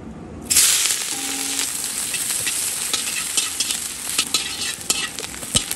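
Chopped green chillies, garlic and capsicum hitting hot oil in an iron kadai: a sudden loud sizzle about half a second in, then steady frying as a metal spatula stirs and scrapes the pan, with scattered clicks.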